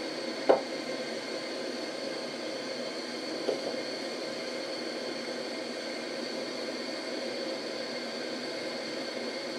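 Steady hiss, with a sharp tick about half a second in and a fainter one about three and a half seconds in.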